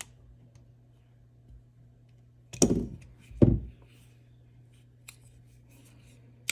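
Leatherman Surge multi-tool being worked on after a pivot is tightened: two loud short metallic sounds a little under a second apart, about two and a half seconds in, with a few light clicks around them.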